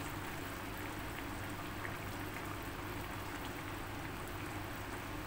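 Steady patter of rain.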